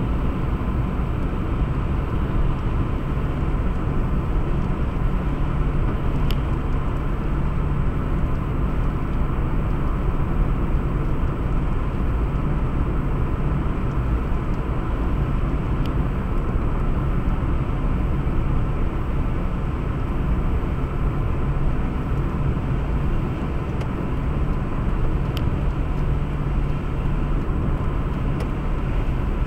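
Car driving at a steady speed: continuous engine and tyre road noise.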